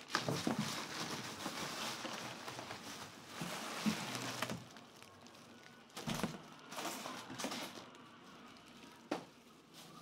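Plastic wrapping crinkling and cardboard rustling as a plastic-wrapped air fryer is lifted out of its cardboard box, with a few knocks.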